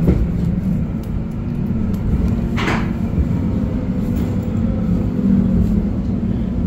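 Steady low rumble and hum of an old tram heard from inside the car as it runs along, with one short, louder noise about two and a half seconds in.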